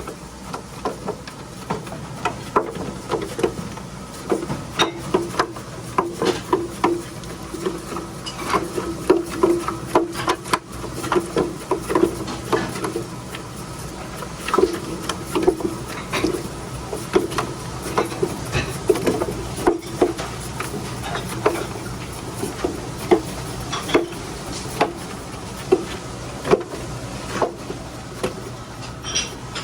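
Radish slicing machine running with a steady low hum under frequent, irregular knocks and clatter as radishes are fed through and cut.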